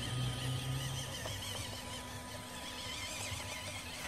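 Electric drive motor and metal gears of a WPL B-16 6x6 RC truck running as it drives over grass, with a steady whine.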